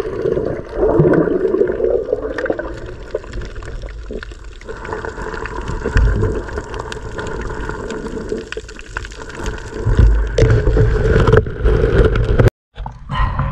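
Muffled underwater sound picked up by a submerged action camera: water sloshing and gurgling with bubbles, swelling and easing as the camera moves. A brief cutout to silence comes near the end.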